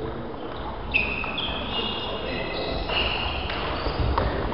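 Table tennis ball clicking sharply off paddles and the table in a rally, a few separate hits, with brief high squeaks among them, in an echoing gym hall.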